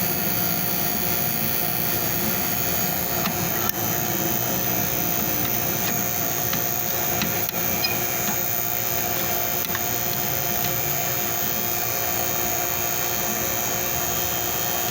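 Refrigeration vacuum pump running steadily while the system is evacuated after a compressor replacement, with a few faint clicks of wire handling.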